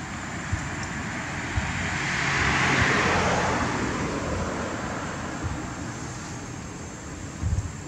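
A motor vehicle passing by: its noise swells to a peak about three seconds in and fades away, over a steady low outdoor rumble. There is a soft low thump near the end.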